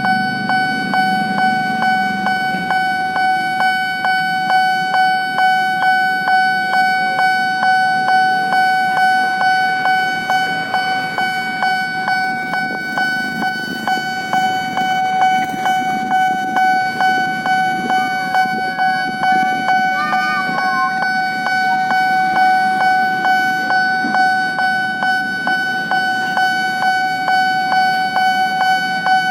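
Railroad level-crossing warning bell ringing on and on, about two strikes a second over a steady tone, with low traffic rumble beneath.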